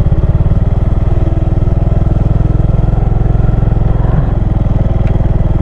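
Motor scooter engine running at low riding speed, a steady fast putter of firing pulses close to the microphone.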